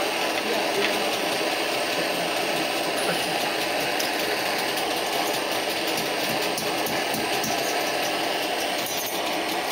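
Handheld gas torch burning with a steady hiss, its flame held on a copper blank to anneal and fire paint it.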